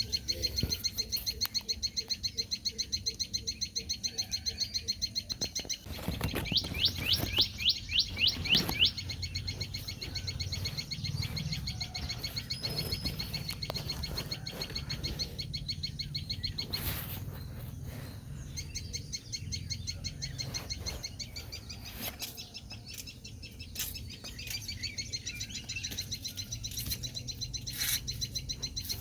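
Sunbirds chirping: a fast, steady run of high chirps, with a louder series of about eight sharp chirps a few seconds in.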